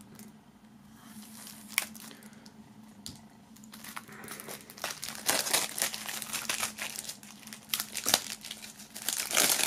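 Plastic shrink-wrap foil being peeled and crumpled off a CD jewel case. There are a few isolated ticks at first, then crinkling from about four seconds in that grows louder toward the end.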